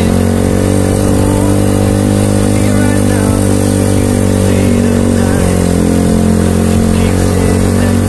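A vehicle engine running steadily at a nearly constant pitch.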